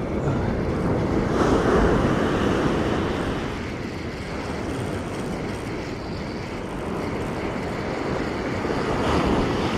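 Wind rumbling on the microphone over the wash of surf, a steady rush that swells about a second in and again near the end.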